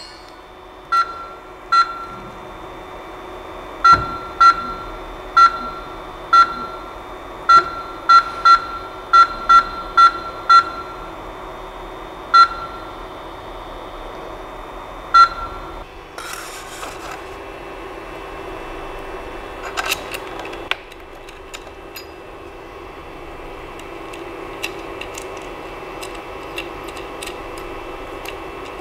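Creality CP-01's buzzer sounding short, identical single beeps, about fifteen at irregular intervals over the first fifteen seconds, as its controls are pressed. A steady hum runs underneath. There is a brief rustle after that, and a sharp click a little past twenty seconds.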